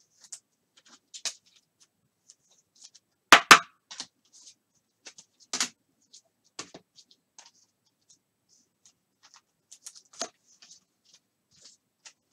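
Hands handling trading cards and card boxes on a table: scattered light clicks, taps and rustles, with two sharp knocks in quick succession about three and a half seconds in and a few smaller taps later.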